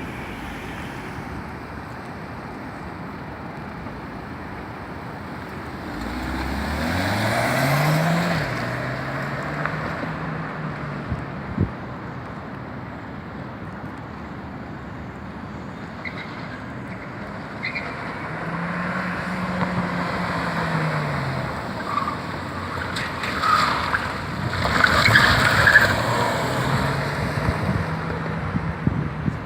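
Skoda car's engine revving hard as the car pulls away from a standing start: the pitch climbs quickly, then eases off. It rises and falls again twice more over the following runs, over steady tyre and road noise.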